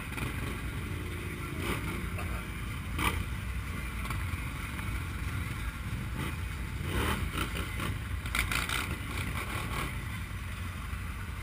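ATV and side-by-side engines idling together at close range, a steady low rumble, with a few brief clicks and knocks about three seconds in and again around seven to eight seconds in.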